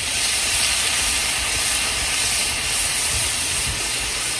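Balsamic vinegar sizzling on a hot Blackstone flat-top griddle as it hits charring Brussels sprouts: a steady, even hiss of the liquid boiling off as steam.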